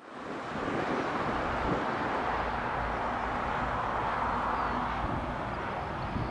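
Distant Airbus A330-200 jet airliner on final approach: a steady rushing jet-engine noise that fades in over the first second, with a faint steady hum mixed in.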